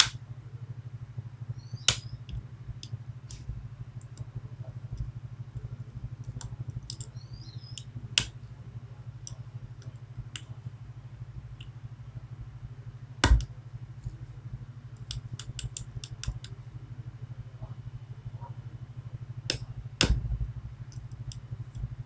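Medeco Biaxial pin-tumbler lock being picked: scattered small metallic clicks and ticks of the pick and tension tool working the pins, with a few sharper clicks, over a steady low hum.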